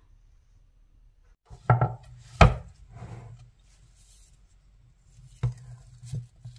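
A plastic spoon knocking and scraping against a glass bowl of mashed potato in a few separate sharp knocks: a cluster about two seconds in, the loudest among them, and two more near the end.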